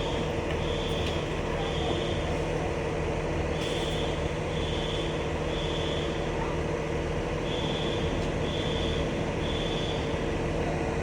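Building fire alarm sounding the temporal-three evacuation pattern: high beeps about a second apart in groups of three, each group followed by a short pause, repeating. Under it runs a steady low rumble with a constant hum.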